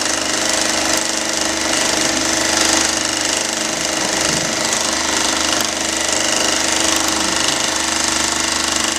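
Sewing machine running steadily at speed, its needle stitching thread into fabric with a rapid, even rattle.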